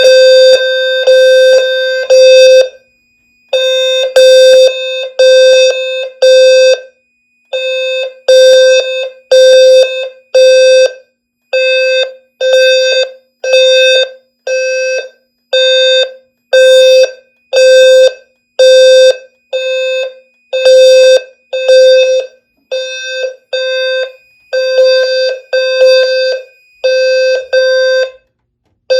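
System Sensor low-frequency sounder horn strobe sounding a fire alarm after a manual pull station is pulled. Its low, buzzy tone pulses on and off about once a second, sometimes with a slightly longer gap, and cuts off just before the end when the alarm is silenced.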